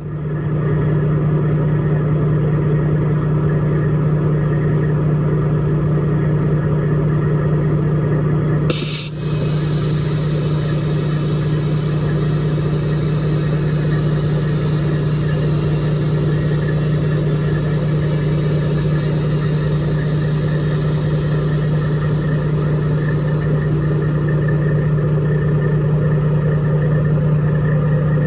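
Diesel engine of a Peterbilt 386 truck idling steadily, with a brief click about nine seconds in.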